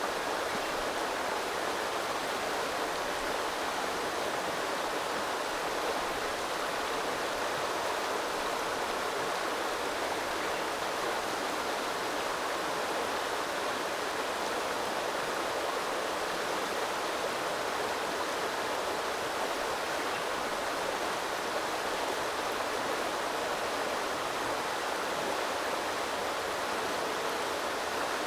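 Small river flowing, a steady unbroken rush of water.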